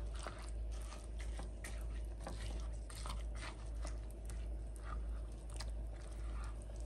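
Irregular crisp clicks and crunches of kitchen food preparation, a few a second, over a steady low hum.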